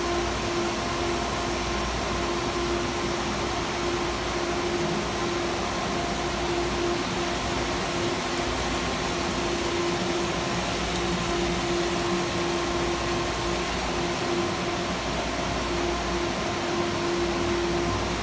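Steady noise of a running water-filtration system: the constant rush of water falling from the filter stack into the collection tub, over a steady hum from the pumps.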